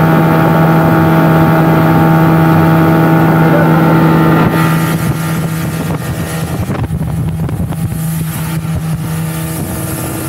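Outboard motor of an open wooden boat running at a steady cruising speed, a constant engine note over the rush of water. About four and a half seconds in, the engine note weakens and rushing water and wind take over more of the sound.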